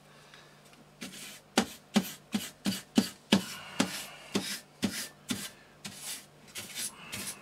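A wooden-handled brush scrubbing across a computer motherboard in quick back-and-forth strokes, about two to three a second, starting about a second in, brushing off dust and debris.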